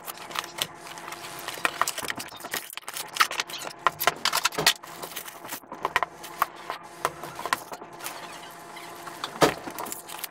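Unboxing handling noise: plastic wrap and a plastic parts bag rustling and being peeled, with irregular clicks and knocks as metal drill-stand parts are lifted from the cardboard box and set down on a cutting mat, the loudest knock near the end.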